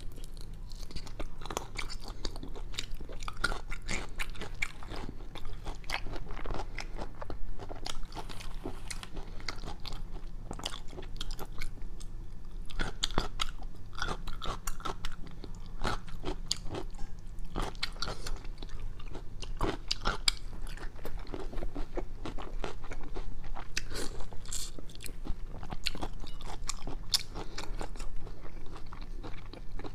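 Close-miked chewing and biting of shrimp: a dense run of irregular crunches and mouth clicks.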